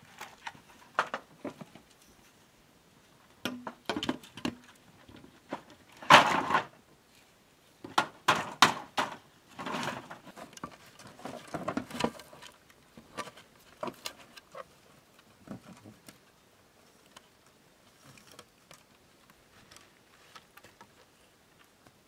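Bamboo poles being handled and lashed together: irregular hollow knocks and clatters of bamboo against bamboo and the dirt ground, with scraping and rustling. The loudest knock comes about six seconds in, and the sounds thin out to a few faint taps over the last several seconds.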